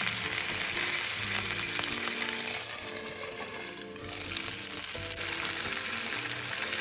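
Marinated pork pieces sizzling as they pan-fry in oil over low heat. The sizzle dies down briefly about three seconds in, then picks up again.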